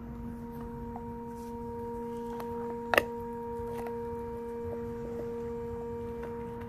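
A dog chewing on a whitetail deer leg bone, with one sharp crack of teeth on bone about three seconds in and a few fainter clicks. A steady humming tone with overtones runs underneath throughout.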